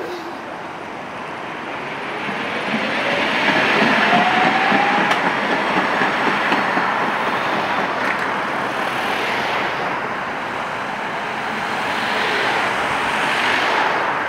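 Tatra T3SUCS tram pulling away from a stop: its traction motors give a whine that rises in pitch over a few seconds, over the rumble of its wheels on the rails. Afterwards cars pass by.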